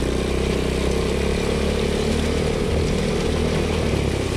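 ATV engine running steadily as the quad rides along a dirt trail.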